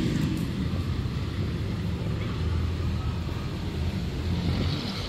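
Low rumble of passing street traffic, with an engine hum swelling and fading in the middle.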